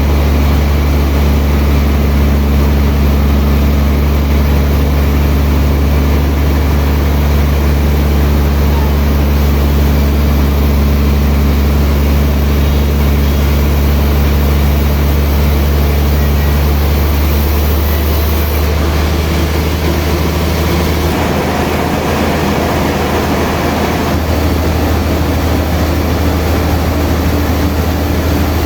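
Sawmill machinery running steadily: a heavy motor with a strong low hum. About three-quarters of the way through, the hum changes pitch and a rougher noise rises over it for a few seconds.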